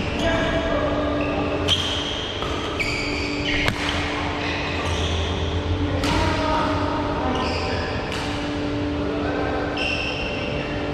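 Badminton rally on an indoor court: several sharp racket hits on the shuttlecock and repeated short, high squeaks of shoes on the court floor, over a steady low hum in the hall.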